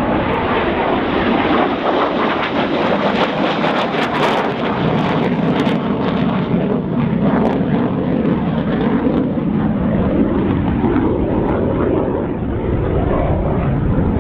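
Jet noise from a Saab 37 Viggen's single Volvo RM8 turbofan as the fighter flies a display overhead: a loud, steady, deep rumble, with a crackling stretch a few seconds in.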